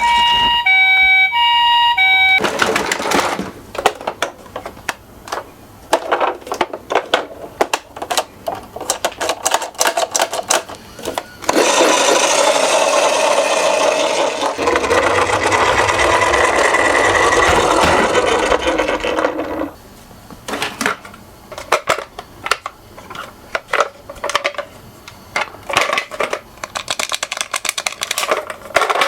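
Toy minicars clicking and rattling as they run down a slope, with a dense whirring stretch in the middle. A short electronic tone melody plays at the very start.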